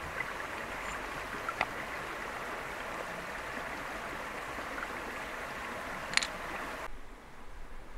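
Shallow river water running over a low line of rocks, a steady rushing noise with two short clicks, the second about six seconds in. Near the end the water noise cuts off suddenly, leaving a quieter, duller hiss.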